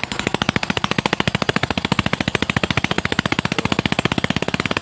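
Yamaha Byson's single-cylinder four-stroke engine running with rapid, even exhaust pulses, freshly rebuilt with a new cylinder block and piston ring set and still in its break-in period.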